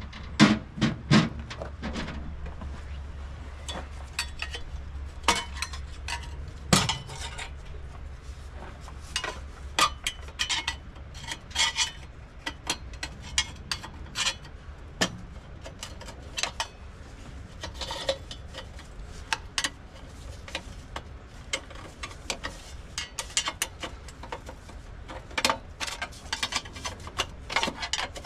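Metal hand tools clinking, tapping and scraping against the parts of a Detroit Diesel 8V92 engine as it is worked on, in irregular sharp clicks and knocks, with a steady low hum underneath.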